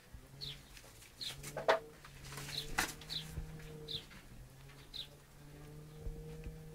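Domestic pigeons cooing in low drawn-out phrases, with short high chirps repeating roughly once a second. Two sharp clicks come about a second and a half and three seconds in.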